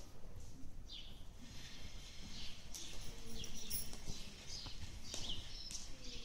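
Small birds chirping again and again in short calls, over the soft footfalls of a horse trotting on sand.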